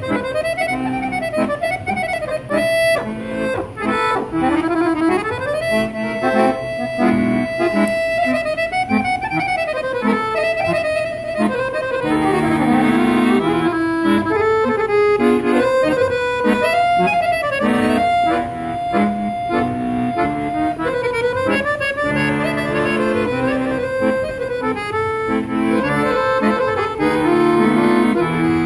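Serenellini Professional Balkan model piano accordion, dry concert-tuned with no tremolo, played solo in a fast Balkan tune: quick, ornamented right-hand melody runs over left-hand bass and chords, with a couple of long held notes.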